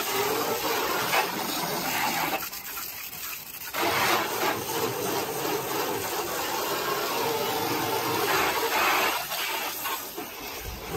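Water jet from a garden-hose spray wand hitting a car's side panels and wheel: a steady hissing splash at good water pressure. It eases off briefly twice as the jet is swept along the body.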